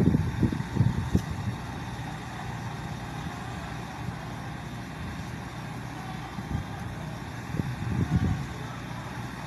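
Diesel light-rail railcar idling at a station platform: a steady low engine hum, with brief low rumbles about a second in and near the end.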